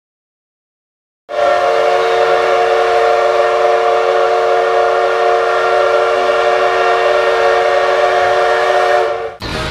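Train horn sounding one long, loud chord of several steady tones for about eight seconds, starting abruptly after a moment of silence and cutting off suddenly near the end.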